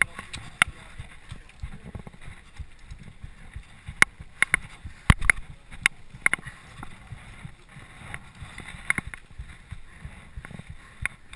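Low rumble on a helmet-mounted camera's microphone, with scattered sharp clicks and knocks from a mountain bike rolled slowly over a gravel path. The loudest knocks come in a cluster a little after the middle.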